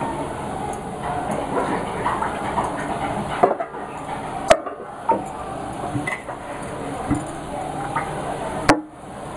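Metal spatula stirring and scraping sauce-coated chapati noodles around a nonstick frying pan, with a few sharp clicks of the spatula against the pan, the loudest about four and a half seconds in and near the end.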